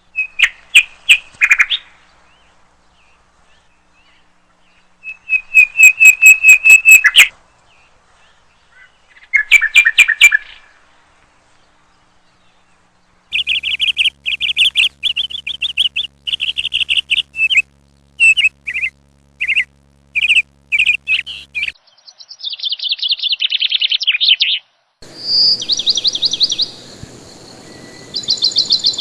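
Birds singing: bouts of quick, high chirps repeated in rapid runs, with pauses between.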